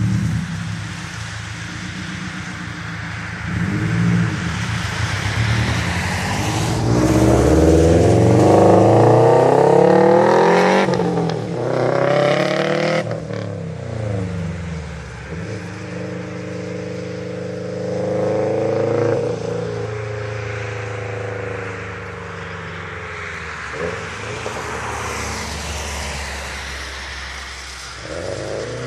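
2012 Subaru WRX STI's turbocharged flat-four running through a straight-piped exhaust, revving up and down. The pitch climbs to its loudest about eight to ten seconds in, falls away, holds steadier for a few seconds, then drops again.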